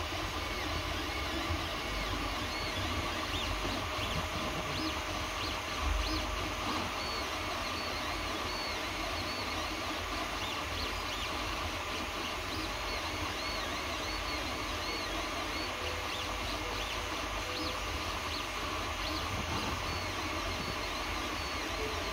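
Creality Ender 3D printer running a print: a steady hum from its cooling fans, with the stepper motors making short, shifting whining tones as the print head moves back and forth laying down wood-filled filament.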